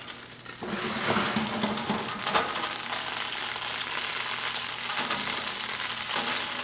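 Bone-in chicken thighs sizzling in a 400-degree oven, a steady hiss that comes up about half a second in, with a faint low hum beneath.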